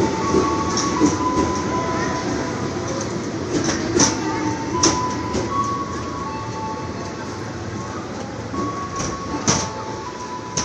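Trains standing alongside a station platform: a steady rumble with thin high humming tones that shift in pitch, and a few sharp clicks about four and five seconds in and again near the end.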